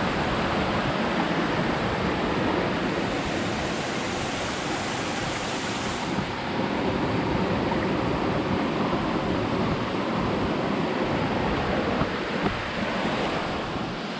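Waterfall rushing: a dense, steady noise of falling water that holds level throughout.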